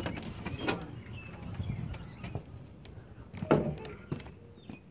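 A house's front door being handled and opened: a few clicks and knocks, with the loudest thump about three and a half seconds in.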